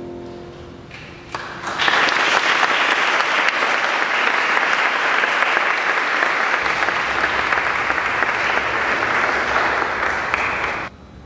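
Audience applauding. The clapping starts about a second and a half in and cuts off suddenly near the end.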